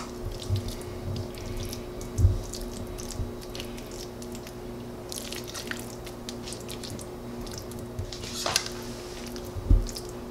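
Small wet, sticky clicks and dabs as a thick creamy spinach-artichoke mixture is pinched from a bowl and pressed onto chicken breasts in a ceramic baking dish, with a few soft knocks, the clearest about two seconds in. A faint steady hum runs underneath.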